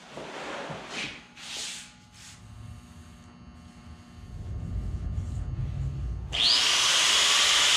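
A few brief rustles and scrapes, then about six seconds in an angle grinder starts suddenly with a rising whine and runs loud and steady, cutting the 18-gauge sheet steel for a roof skin.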